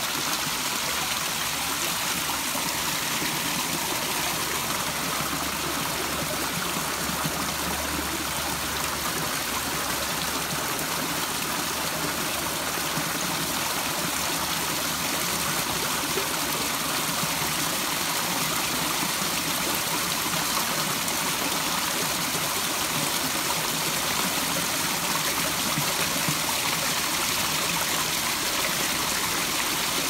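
Water running steadily into a koi pond, an even trickling, splashing hiss with no change.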